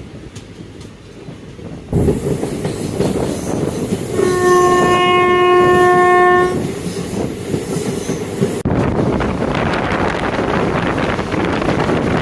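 Train horn sounding one long steady blast about four seconds in, over the running noise of the moving express train on the rails. The running noise jumps suddenly louder about two seconds in.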